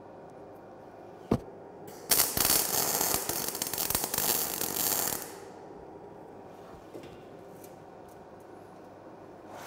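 A single sharp click, then about three seconds of loud, crackling MIG welding arc as a steel tube leg is tack-welded to an angle-iron frame.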